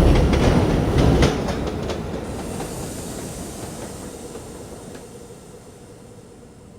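R142 subway train pulling out: a heavy rumble with wheels clicking over rail joints for the first couple of seconds, then the sound dies away steadily as the train moves off.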